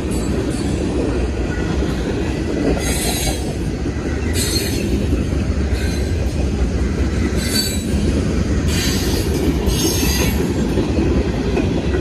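Freight train cars rolling past with a steady low rumble of wheels on rail, broken by several brief high-pitched wheel squeals between about three and ten seconds in.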